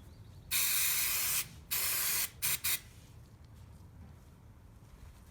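Aerosol brake cleaner spraying onto the CV joint parts in bursts: a hiss about a second long, a shorter one of about half a second, then two quick puffs.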